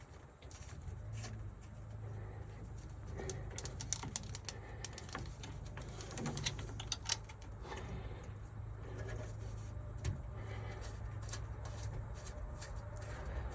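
Scattered light clicks and taps of hand tools and air-line fittings being handled, bunched together in the middle, over a low steady hum.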